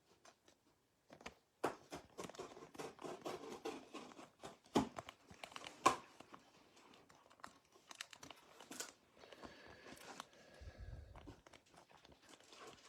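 Faint crinkling and tearing of a trading-card pack wrapper being opened, with scattered sharp clicks from the cards being handled; the rustling is busiest in the first two-thirds and quieter near the end.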